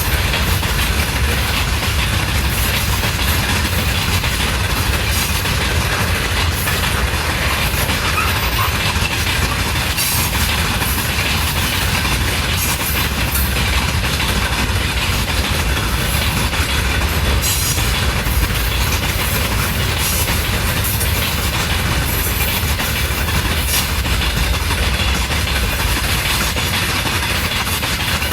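Freight train wagons rolling past without stopping: a steady low rumble with the clickety-clack of wheels over rail joints throughout and a faint wheel squeal.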